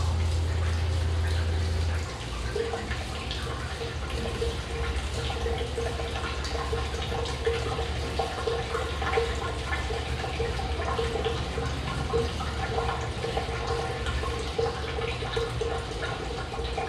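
Water spraying and dripping from the leaking gaskets of a 20x20 plate and frame beer filter under pump pressure, the gaskets not yet compressed while the pads hydrate. Under it a steady machine hum that drops in level about two seconds in.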